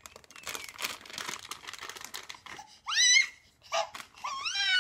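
Crinkling of a plastic cat-treat pouch being handled. About three seconds in there is a short, high, rising squeal, and more rising calls come near the end.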